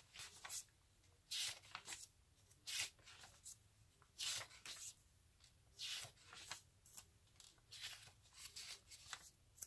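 Paper pages of a journal being turned by hand: a series of faint, short papery swishes and rustles, roughly one a second.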